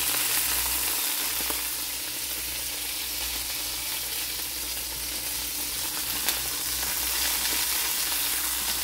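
Chicken drumsticks sizzling steadily as they pan-fry in hot oil in a stainless steel wok, with one sharp click about six seconds in.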